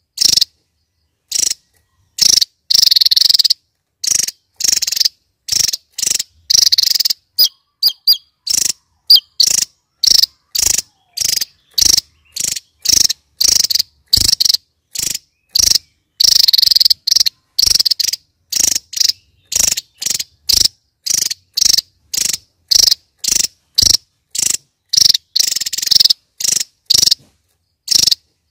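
Javan tesia singing: short, high-pitched notes repeated one or two a second, broken by a few longer, rapid runs.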